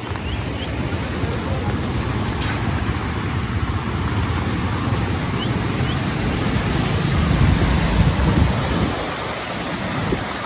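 Steady roar of fast-flowing muddy floodwater rushing beneath a road bridge, with wind buffeting the microphone and rumbling low, the rumble strongest near the end.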